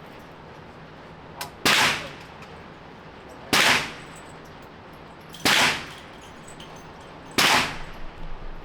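Four single gunshots from a firearm, fired at an even pace about two seconds apart, each followed by a short echoing tail.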